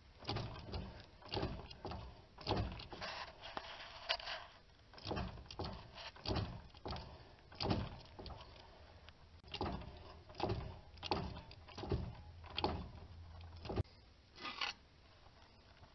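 Irregular knocks, clicks and scrapes from hands and tools at the opened, oil-coated rear differential, one or two a second, with a rougher scraping stretch a few seconds in.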